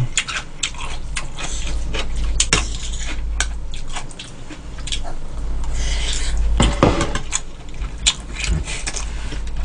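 Metal chopsticks and a spoon clicking and scraping against a bowl of beef seaweed soup while eating, in many short irregular clicks over a low steady hum.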